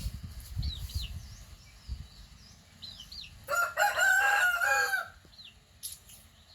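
A rooster crows once, a single call about a second and a half long, over repeated short high chirps from small birds.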